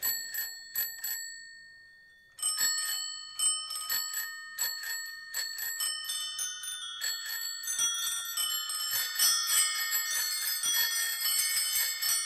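Bicycle bells ringing as an instrumental break in a recorded song: a few rings, a quiet gap of over a second, then many bells ringing over one another, thickening into a dense jangle.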